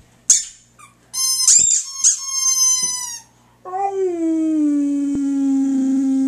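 A squeaky dog toy gives a short squeak, then a drawn-out high squeal for about two seconds. From about halfway in, a boxer dog howls one long, steady note that sags slightly in pitch.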